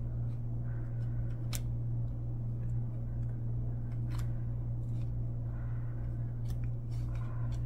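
Football trading cards being thumbed through by hand, sliding against one another, with soft rustles and a few sharp clicks as cards flick off the stack. Under it runs a steady low hum.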